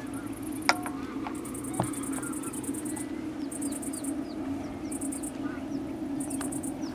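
Wetland evening ambience: insects trilling high in repeated bursts of about a second, a few short falling bird chirps, and a steady low drone underneath. Two sharp clicks come in the first two seconds.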